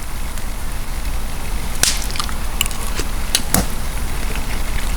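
Campfire of resinous, dried wood crackling: a steady hiss with a few sharp pops, the loudest about two seconds in and around three and a half seconds.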